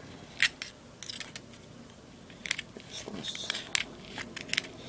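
Sharp metal clicks and scratching as packed rayon balls are picked out of a Zippo lighter's metal insert: a loud click about half a second in, then a run of clicks with a brief scratchy rustle in the second half.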